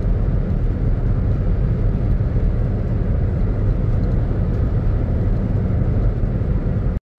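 Steady low rumble of road and engine noise inside a car cruising at highway speed. The sound cuts out completely for a moment near the end.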